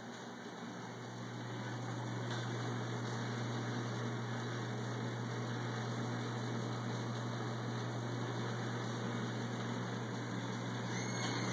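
Glassworking lathe running, a steady low motor hum that grows louder over the first second or two and then holds even.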